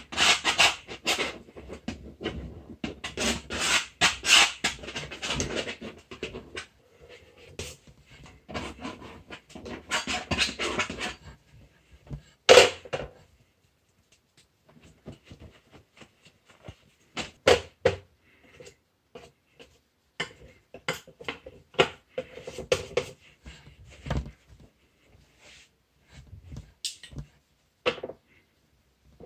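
Scratchy rubbing as paint is scrubbed onto a canvas by hand, in bursts for the first ten seconds or so. After that comes one sharp knock, then scattered light clicks and taps of paint tubes and tools being handled on a table.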